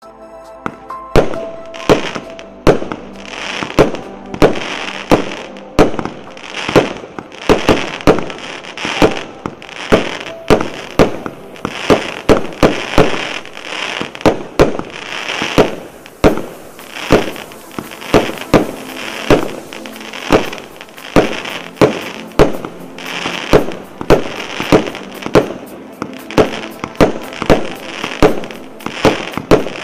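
A 100-shot, 0.8-calibre consumer fireworks cake firing: a long steady series of sharp bangs, about one and a half to two a second, each followed by a short noisy tail.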